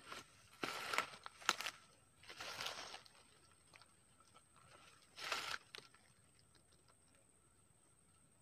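Several short bursts of crunching and rustling in dry leaf litter and undergrowth over the first six seconds, with a few sharp snaps, then quiet apart from a faint steady high tone.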